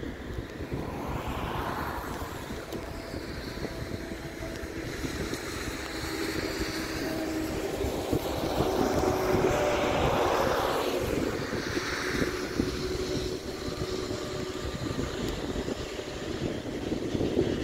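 Aircraft engine noise swelling to a peak a little past the middle and then fading, over steady wind buffeting the microphone.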